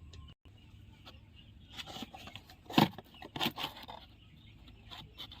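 Chickens clucking, with a cluster of short sharp calls or knocks, the loudest about three seconds in.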